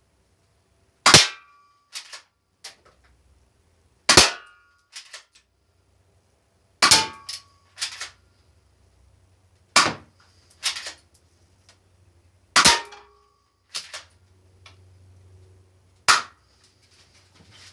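Toy BB pistol shooting six times, about one shot every three seconds. Each sharp crack rings briefly and is followed about a second later by a fainter click.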